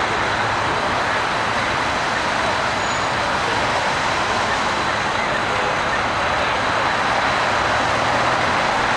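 Steady city traffic noise: cars and trucks driving through a street intersection.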